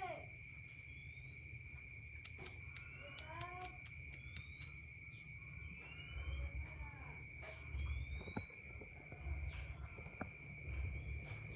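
Faint insect-like chirping: a steady high-pitched tone with short rapid pulse trains above it. A few faint bird chirps and calls come in at intervals.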